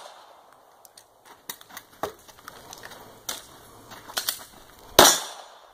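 A single loud handgun shot about five seconds in, with a ringing tail, fired during a timed run at shape targets. It is preceded by several fainter sharp clicks and knocks.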